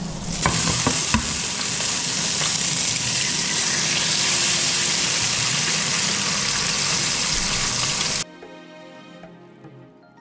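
Egg frying in hot fat in a non-stick pan: a loud, even sizzle, with a few sharp clicks near the start. The sizzle cuts off abruptly about eight seconds in, leaving a much quieter stretch with a few faint steady tones.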